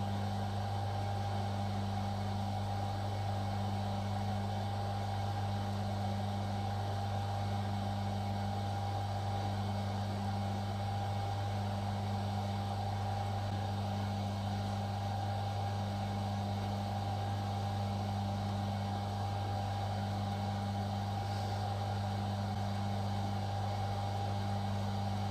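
A steady machine hum with a faint higher tone above it, unchanging throughout.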